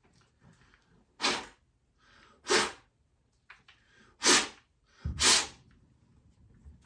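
A person blowing four short, hard puffs of breath, about a second apart, to clear wood chips off a chainsaw's air filter.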